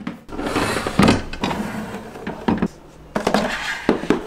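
White plastic storage boxes and food containers being slid and set down in a kitchen drawer: scraping as they slide, with a few hollow knocks, the loudest about a second in.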